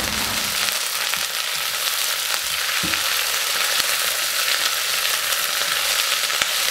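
Sliced green chili peppers, onion and celery sizzling in hot oil in a nonstick pot, stirred with a spatula: a steady frying hiss with light spatula scrapes and clicks, and one soft knock about three seconds in.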